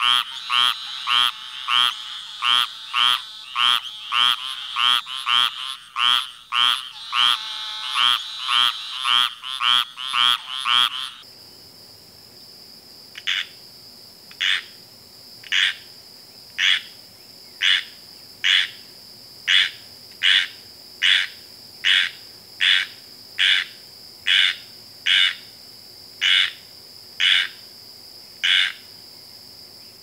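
Treefrog calling: short calls repeated about twice a second. About 11 seconds in, a cut to a second recording brings slightly more widely spaced calls over a steady high tone.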